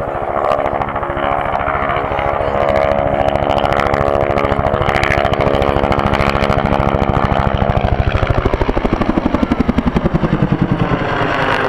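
Bell AH-1 Cobra attack helicopter flying close by, its rotor beating in a fast, even pulse over a steady engine tone. The pulsing grows strongest and the pitch drops over the last few seconds as it passes.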